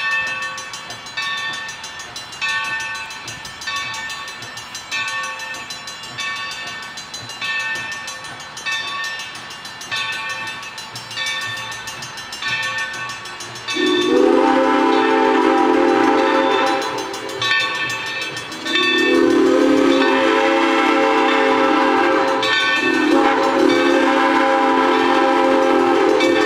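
Steam locomotive 3025 getting under way: its bell rings with slow, even strokes about once a second. From about halfway through, its steam whistle sounds three long, loud blasts, the last two nearly run together.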